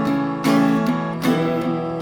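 Acoustic guitar strumming slow chords, with the chords ringing on between strums: the accompaniment of a song performance.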